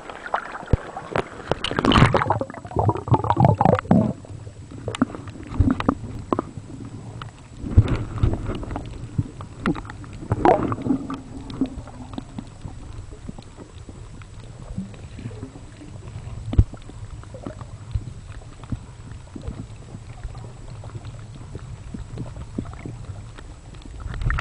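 Water sloshing and gurgling against a camera held at and just under the sea surface while snorkeling. It splashes in bursts over the first ten seconds or so, then settles into a muffled underwater rumble with scattered small clicks.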